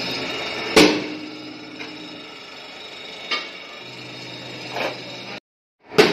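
Pillar drill's electric motor running with a steady hum, with metal clanks from the steel strip on its table: a loud one about a second in and lighter ones later. The sound breaks off shortly before the end, and a sharp knock follows.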